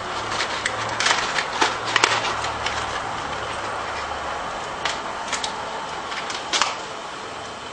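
A pot of black beans with carrots and scallions bubbling over a gas burner: irregular pops and crackles over a steady hiss.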